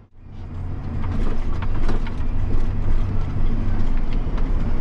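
John Deere 7250R's six-cylinder diesel engine running steadily with a deep hum, heard from inside the cab while driving over rough stubble ground. Short knocks and rattles break through it. The sound fades in from a brief low point in the first second.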